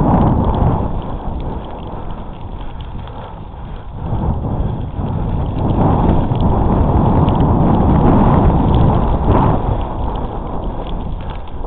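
Wind buffeting the microphone of a camera on a bicycle riding fast down a rough woodland trail, with the rumble and rattle of the bike over the ground. It eases briefly a couple of seconds in, then grows louder again for several seconds.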